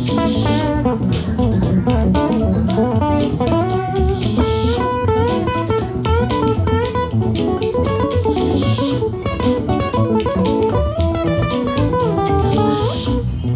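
Live band playing an instrumental break: an electric guitar lead with bent notes over bass guitar, with a bright crash about every four seconds.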